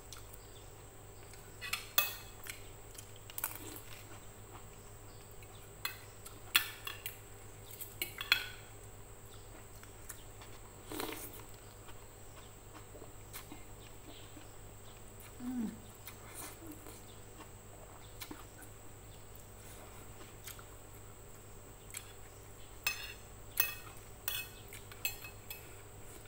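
Metal spoon and fork clinking and scraping on a plate in scattered sharp clicks, with a cluster of them near the end, between mouth sounds of slurping noodles and eating.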